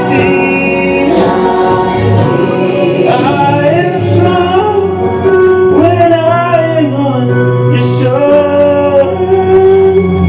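A man singing a Hmong song through a microphone over musical accompaniment, the bass notes underneath changing about every two seconds.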